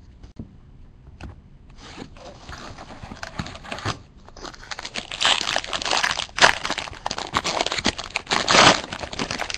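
Foil wrapper of a trading card pack crinkling and tearing as it is opened, growing louder through the second half.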